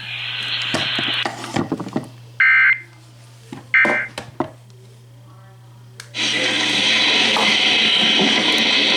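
Emergency Alert System end-of-message data tones: two short, harsh digital bursts about a second apart. About six seconds in, a loud steady hiss-like noise starts suddenly.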